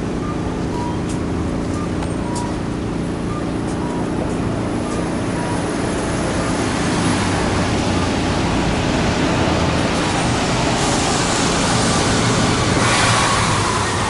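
Kagoshima City Tram 7500-type low-floor tram standing at a stop with a steady hum, with short high beeps about once a second for the first few seconds. Street traffic rises over it and is loudest near the end.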